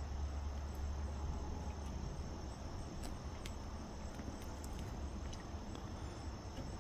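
Steady chorus of crickets: a continuous high trilling with a low steady rumble underneath.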